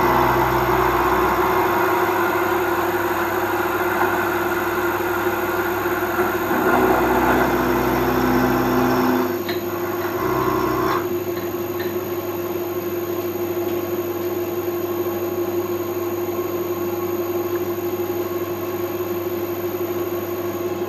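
Vertical milling machine running, its end mill cutting a tooth into a torque-wrench nut held on a rotary table. A steady hum throughout, growing louder for about the first two seconds, again for a few seconds just past the middle of the first half, and briefly near eleven seconds.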